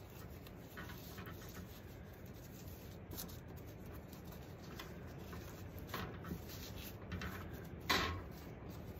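Thin plastic tablecloth strips rustling and crinkling as they are knotted and pushed along a wire star wreath frame, with a louder rustle about eight seconds in as another strip is picked up.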